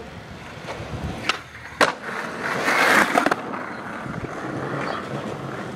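Skateboard on concrete: two sharp clacks of the board about half a second apart, then a louder rush of wheels rolling, settling into steady rolling.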